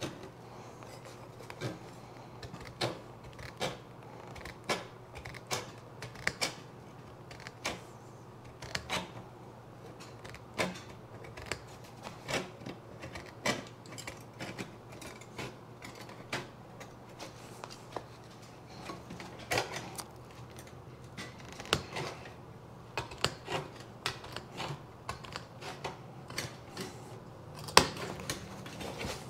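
Hand tin snips cutting through the rusty sheet-steel edge of a motorcycle seat pan: a string of sharp, crunchy snips, about one a second and uneven in strength.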